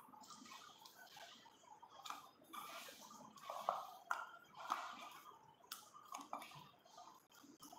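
Hands mixing and kneading dough in a stainless steel bowl: faint, irregular squishing and rustling, with a few light clicks against the bowl.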